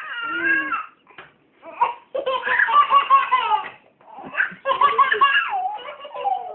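Toddler laughing in several high-pitched, pulsing bouts, each about a second long, with short breaks between.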